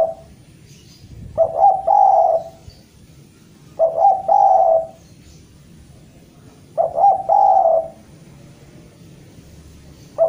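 Spotted dove (derkuku) cooing, the repeated call it gives to a rival. About every three seconds it gives a call of a couple of short stuttered notes and then a longer held coo, three full calls in all, with the end of one at the start and the beginning of another at the very end.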